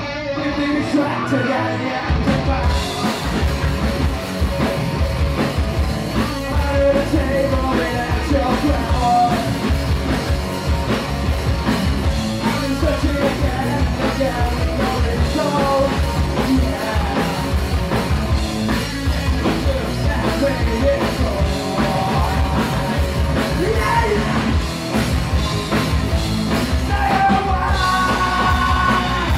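Live rock band playing: electric guitar, electric bass and drum kit, with sung and shouted vocals from the guitarist and the bassist. The bass and drums come in about two seconds in.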